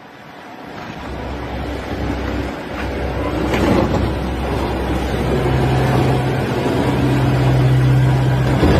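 Car engine running over a wash of noise, with a steady low drone coming in about halfway through.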